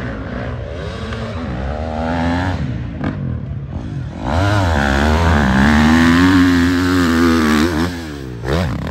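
Four-stroke dirt bike engine revving hard under load on a hillclimb, its pitch rising and falling with the throttle. It dips briefly about three seconds in, then runs louder at high, climbing revs from about four seconds before dropping off near the end.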